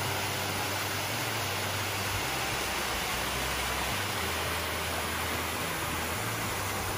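Small waterfall on a rocky creek, the water rushing steadily.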